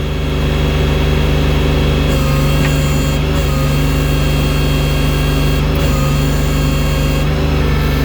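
Engine of a snow-clearing machine fitted with a front bucket, running steadily under load, with small dips in pitch a few times.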